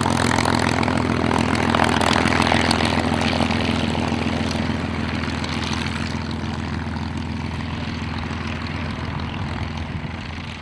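A P-51D Mustang's Packard Merlin V-12 engine running at low power as the fighter taxis away, a steady propeller and exhaust sound that slowly grows quieter.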